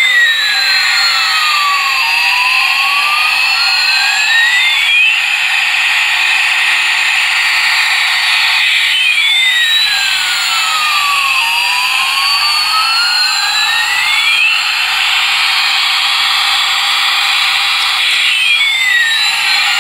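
Toy Boeing 777 airliner's built-in electronic jet-engine sound effect from its small speaker: a steady hissing engine whoosh with whining tones that glide down and back up, the cycle repeating about every nine seconds.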